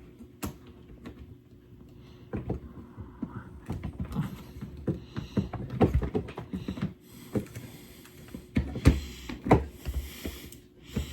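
Irregular clicks, knocks and rustling of objects and cables being handled and moved about.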